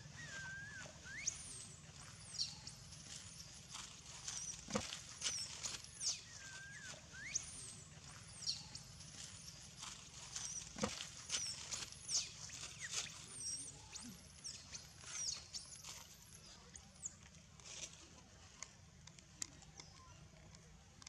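High-pitched animal squeaks: short chirps that swoop up and down in pitch, repeated about once a second, with a few lower wavering cries near the start. A steady low hum runs underneath.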